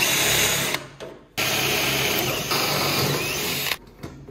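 DeWalt cordless drill drilling through a metal mounting plate into a fiberglass body panel, in two runs: a short one of under a second, then after a brief pause a steady run of about two and a half seconds.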